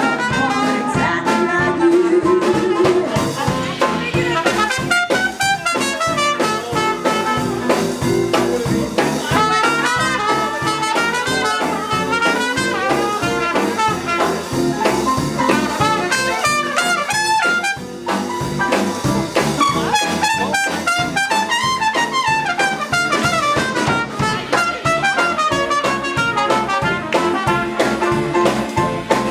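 Live small jazz band playing an instrumental break in swing time, the trumpet to the fore over saxophone, piano, bass and drums.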